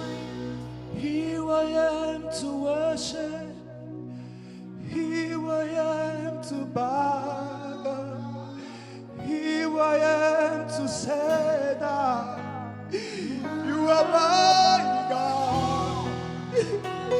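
Live gospel worship music: sustained instrumental chords with singing voices drawing out long, wavering phrases that swell and fall.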